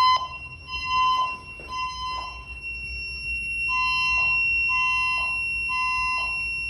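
Fire alarm voice-evacuation system sounding its temporal-three evacuation tone between announcements: three short beeps about a second apart, a pause, then three more, echoing down the hallway. A steady high-pitched tone sounds underneath throughout.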